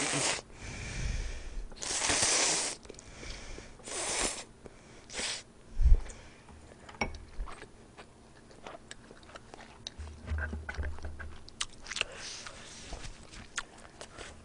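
Close-miked eating: several long slurps of noodles in the first five seconds, then wet chewing and lip smacking. A single low thump about six seconds in is the loudest sound.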